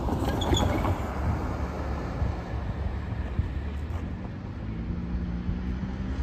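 Low, steady engine rumble from motor vehicles, with a steady low hum joining about four and a half seconds in.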